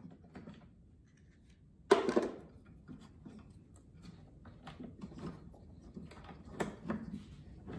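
Wooden knocks and rubbing as the guitar body is handled against its wooden jig and locating blocks. There is one sharp knock about two seconds in, then lighter taps and scrapes.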